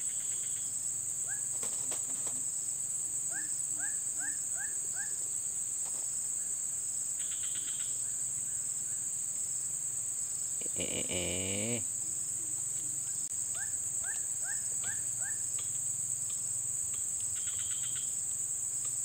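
Steady, high-pitched insect chorus, with two runs of five quick rising chirps and a brief stronger call about eleven seconds in.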